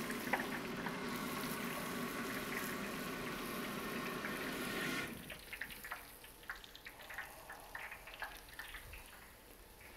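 A whole snapper deep-frying in a wok of hot oil: a steady bubbling sizzle that drops away suddenly about five seconds in, leaving faint scattered crackles and clicks.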